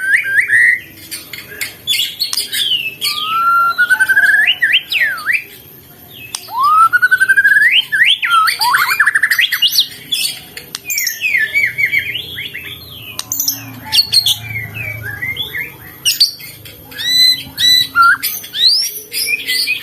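White-rumped shama (murai batu) singing a varied song: long rising whistled glides, rapid trills and short sharp chattering phrases following one another with hardly a pause.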